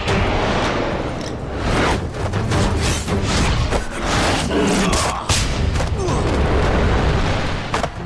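Martial-arts fight sound effects: a run of sharp booming hits over dense rushing noise, mixed with dramatic music.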